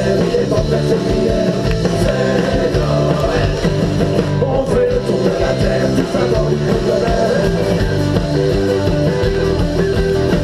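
Live rock band playing on stage through the PA, an electric guitar among the instruments, with a steady beat and no break.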